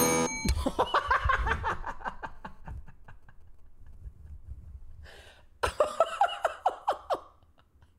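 A desk service bell is struck once and rings briefly: the signal that eliminates the date. Then comes laughter in short pulsing bursts, which fades, and a man laughs again later on.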